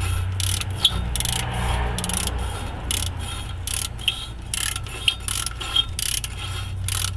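Socket ratchet clicking in short, uneven strokes, with occasional sharper metal clinks, as exhaust collector bolts are worked. A steady low hum runs underneath.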